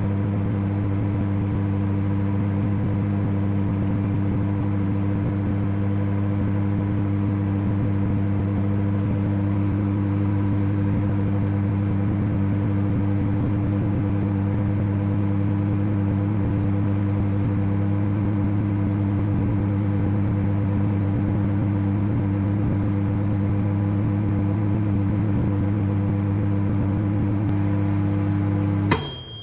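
Microwave oven running with a steady mains hum while it heats an avocado. Near the end it cuts off with a click and a short ringing ding, the end-of-cycle chime.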